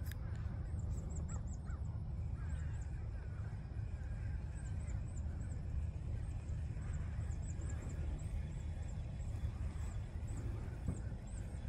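Geese honking faintly in the distance, a few scattered calls over a steady low rumble.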